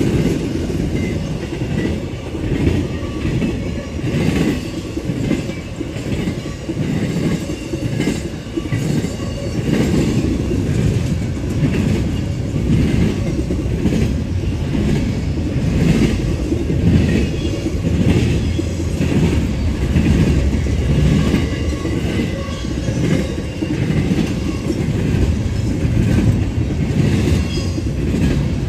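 Norfolk Southern double-stack intermodal freight train rolling past, its loaded well cars giving a steady low rumble and a rhythmic clickety-clack of steel wheels over the rail joints and crossing.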